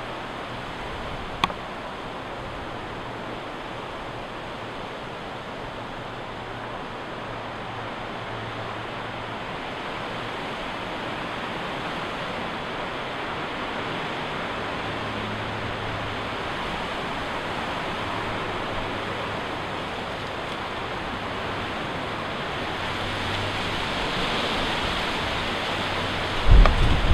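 Wind blowing through tall leafy trees and conifers, a steady rushing of leaves that swells slightly toward the end. A sharp click comes about a second and a half in, and a few low thumps near the end.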